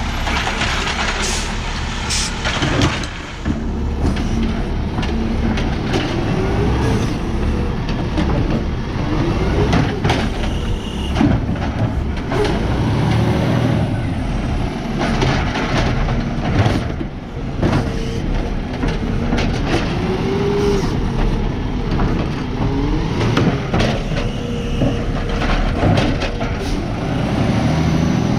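Peterbilt 520 garbage truck with a McNeilus AutoReach automated side arm, its engine revving up and down several times to drive the hydraulics as the arm grabs, lifts and dumps carts, with clanks of carts and arm against the truck.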